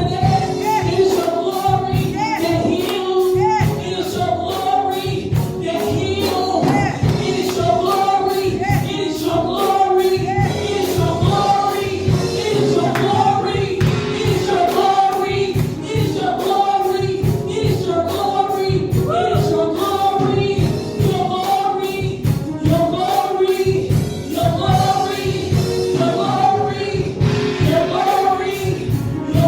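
Gospel worship music: a choir singing over a held chord with a steady beat.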